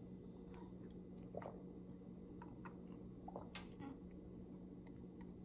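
Faint clicks and taps of a clear plastic tumbler being sipped from through a straw and handled, over a steady low hum of room tone.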